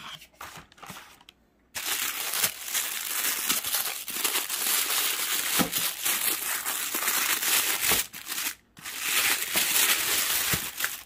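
Tissue paper in a shoebox crinkling and rustling as it is handled and pulled apart. It starts about two seconds in and keeps up, with one short break about three-quarters of the way through.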